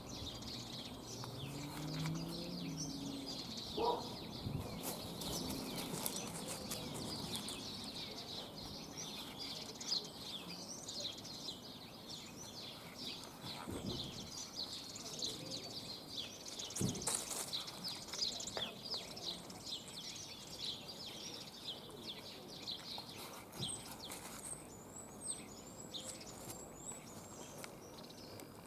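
Small birds chirping busily, with a few sharp clicks over the top; the chirping thins out in the last few seconds, leaving a high, thin repeated call.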